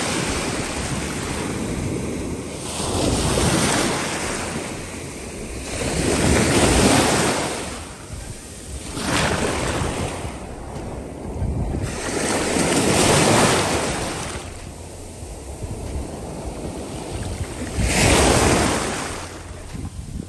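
Sea waves washing in and breaking in swells every three to five seconds, with wind buffeting the microphone.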